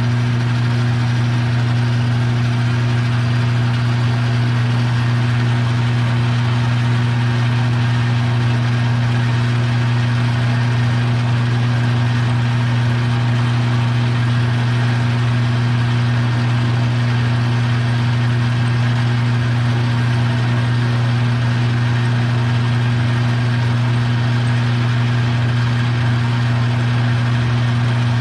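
Electric shop machine switched on just before, running at a steady speed with a loud, unchanging hum and whirr.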